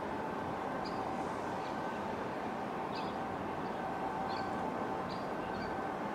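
Steady low engine drone with a faint even whine, from the slowly departing bulk carrier and its assisting tug. Short high bird chirps sound about eight times over it.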